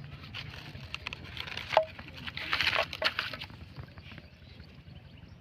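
Old plastic crinkling and rustling as it is handled and stuffed into a bag, with scattered sharp clicks and a denser crackling stretch about two and a half seconds in.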